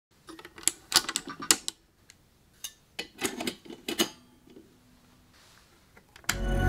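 Irregular mechanical clicks and knocks of a Bell & Howell film projector being handled, in two bursts of rattling. Near the end a switch snaps with a sharp click and loud music starts at once.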